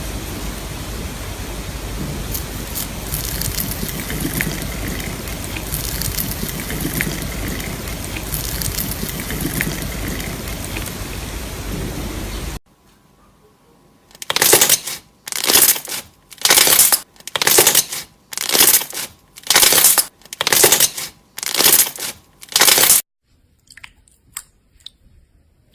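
Slime being squished and worked by hand, first a steady crackling squish, then, after a brief pause, about ten evenly spaced crunchy presses, roughly one a second.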